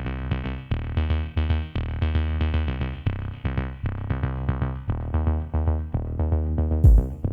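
Electronic background music: short repeated synthesizer notes over a bass line, with a drum-machine beat coming in near the end.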